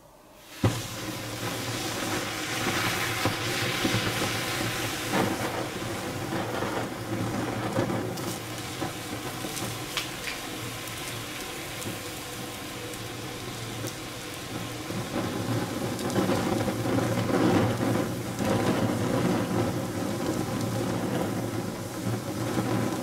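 A red-hot metal ball drops into a glass of popcorn with a sharp click, then the popcorn crackles and sizzles as it scorches and catches fire, the flames burning with a steady noisy rush that grows louder in the second half.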